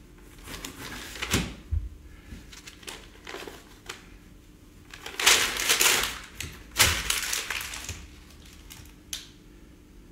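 Paper rustling and scratching as a quill pen writes and sheets of paper are handled, in three bursts of about a second each with a few light knocks between.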